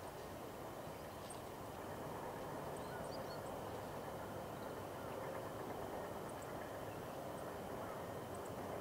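Faint, scattered high chirps of small wild birds over a steady, even background rush.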